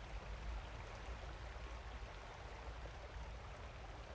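A steady rushing noise with a low rumble beneath it.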